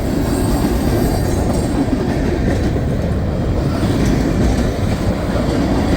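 Freight cars of a long mixed freight train rolling steadily past, steel wheels rumbling on the rails.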